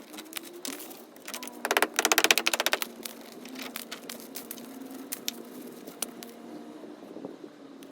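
Old mortar being chipped out of a brick wall: a burst of rapid, even hammering lasting about a second, near two seconds in, among scattered knocks and scrapes of tool on brick and mortar.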